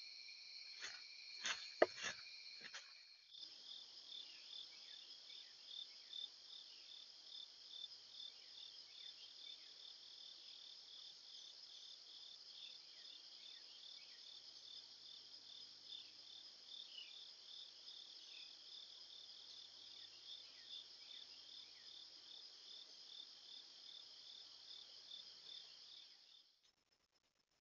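Faint insect chorus of high, steady trills, with a few sharp clicks and knocks in the first two seconds. After about three seconds it changes to a high, evenly pulsing chorus with faint short chirps over it, then cuts off suddenly near the end.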